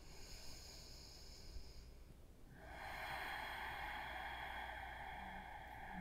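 Faint, slow human breathing held in a steady rhythm: a soft breath at first, then a longer, louder drawn-out breath starting a little under halfway through and still going at the end.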